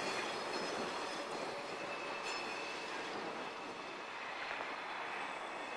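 CN Geep diesel locomotives rolling slowly past on a switching move, wheel flanges squealing in thin, steady high tones over a steady rolling noise.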